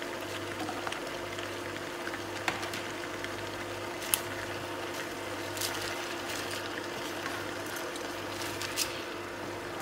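Beef and vegetables sizzling in a frying pan as a wooden spatula stirs fresh bok choy through them, with a few sharp taps and scrapes of the spatula against the pan. A steady low hum runs underneath.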